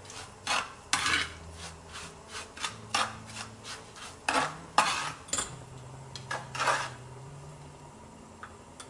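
A metal spoon scraping grated orange zest across a bamboo plate and scooping it into a glass clip-top jar, in a run of irregular short scrapes and taps.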